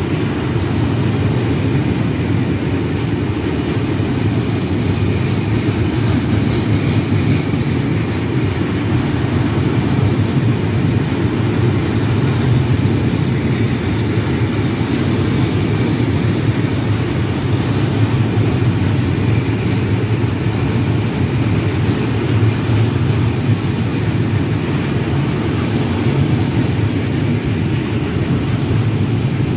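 Container freight train's flat wagons rolling past on the track: a loud, steady rolling noise of steel wheels on rails, mostly low in pitch.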